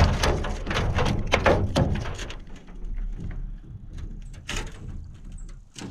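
Knocks and rattles against an aluminum jon boat as a bass is fought and landed: a quick run of sharp knocks in the first couple of seconds, then fewer, softer ones.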